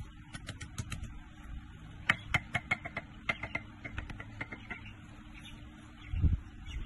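A steel mason's trowel tapping a brick down into fresh cement mortar: a quick run of sharp clinks, each with a short metallic ring. Near the end come a couple of dull thuds.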